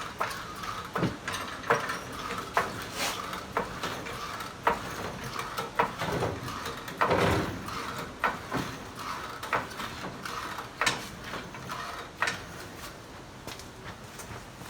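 A jack being worked to lift a Polaris Ace UTV, giving irregular clicks and metal clanks, with a longer scraping rush about halfway through.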